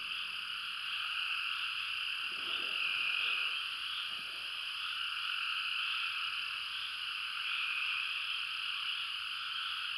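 Steady, dense chorus of many frogs calling at once, with no pause.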